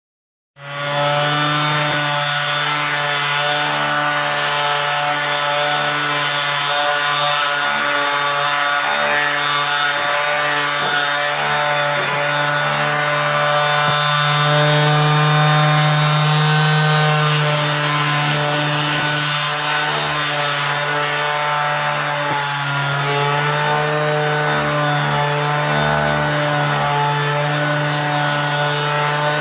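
Electric power tool's motor running steadily under load, a continuous even hum with a slight swell partway through, cutting in and out abruptly.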